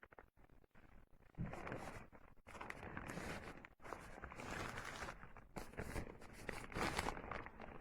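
Thin plastic rain poncho rustling and crinkling as it is handled, in uneven bursts with a few sharp clicks.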